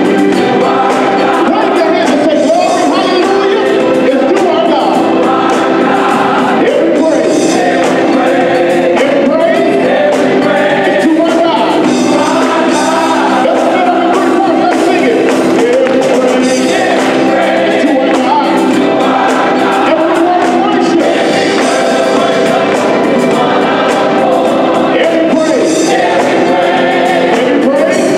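Gospel choir singing in harmony, accompanied live by organ, electric bass guitar and drums.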